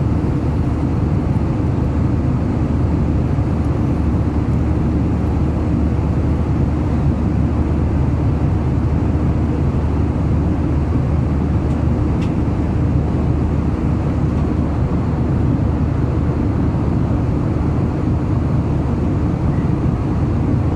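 Airliner cabin noise in flight: the steady low drone of the engines and rushing air, unchanging throughout.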